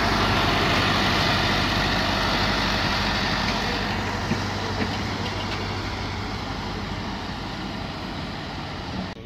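Passenger train coaches rolling past at walking-to-running pace: a steady rumble and wheel-on-rail noise with a couple of light clicks near the middle, slowly getting quieter as the train pulls away.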